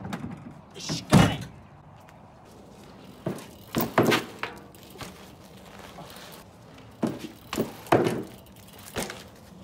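A series of separate thuds and knocks, the loudest about a second in, with clusters of smaller knocks near the middle and toward the end.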